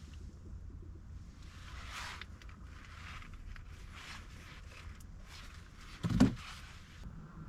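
Intermittent rustling and handling noises, with one loud thump about six seconds in.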